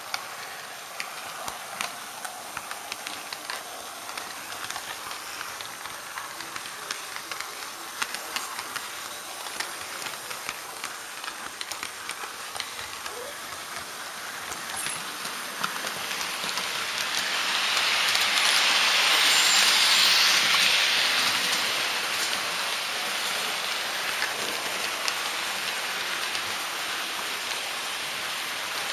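HO-scale model trains running on track: a steady hiss of wheels and motors with many scattered clicks. It swells louder for a few seconds past the middle as another model train runs close by, then eases back.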